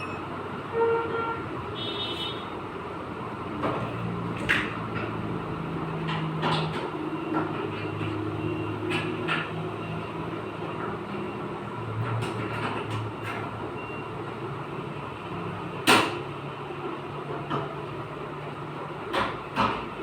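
Body-shop workshop noise: a steady motor hum that shifts in pitch, with scattered metallic taps and clanks on car body panels and a sharp bang about sixteen seconds in.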